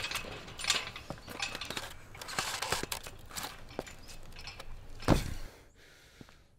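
Rusty chain-link fence and metal rail rattling and clinking as a man climbs over it, with a loud thump about five seconds in.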